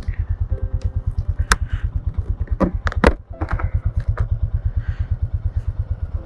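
Royal Enfield Meteor 350's 349 cc single-cylinder engine idling with an even, rapid thump, with a few short sharp clicks about one and a half to three seconds in.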